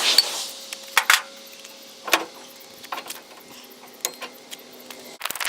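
Scattered sharp clicks and knocks, roughly one a second, over a faint steady hum, with a quick run of clicks near the end.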